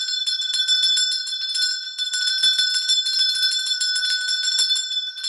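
Bright ringing bells: several high tones held steady, with a constant fast tinkling of small strikes over them, like a sparkle chime effect.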